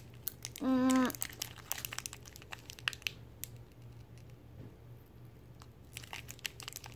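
Small plastic candy packet crinkling as it is handled and torn open. There is a short hummed vocal sound about a second in.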